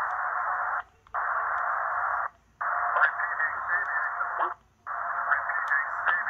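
Portable shortwave receiver's speaker in upper sideband on a military VOLMET weather broadcast: narrow-band static hiss with a faint, mistuned voice and a steady low whistle. It cuts out briefly three times. The voice cannot be tuned to a natural pitch because of the radio's reverse-tuning fault in SSB.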